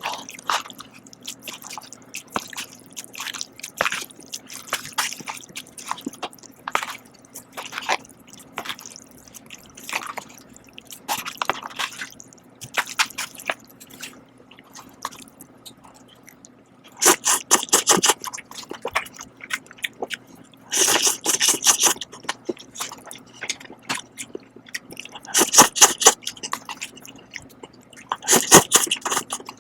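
Close-miked eating of cup ramen noodles: wet chewing and mouth smacks, then four loud slurps of about a second each in the second half.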